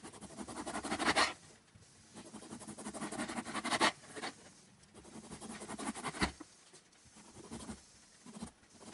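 Chef's knife sawing slices off a slab of skinless bacon on a plastic cutting board, in about four drawn-out scraping strokes, with a short knock about six seconds in.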